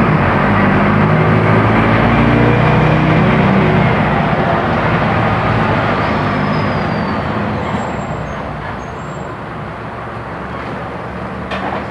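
Mercedes-Benz OF-1418 bus's diesel engine running under load with a steady drone, then easing off and getting quieter from about six seconds in as the bus coasts. A faint falling whistle comes in around six seconds, and a short click near the end.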